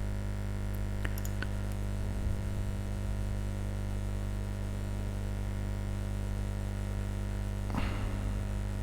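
Steady electrical mains hum with a faint hiss, and a couple of faint clicks about a second in.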